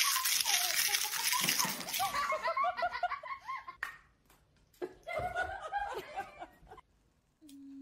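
A person laughing in quick repeated bursts, breaking off briefly and then laughing again.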